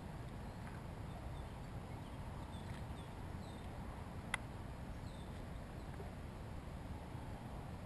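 Quiet open-air background: a steady low noise with a few faint, short high chirps, and one sharp click about four seconds in.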